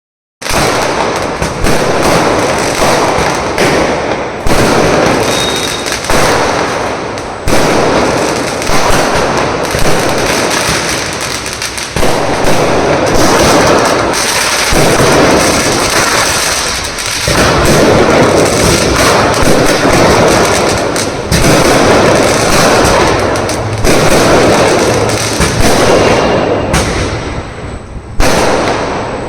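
Fireworks going off in a continuous barrage of bangs and crackling, with a fresh loud burst every second or two, each fading into the next.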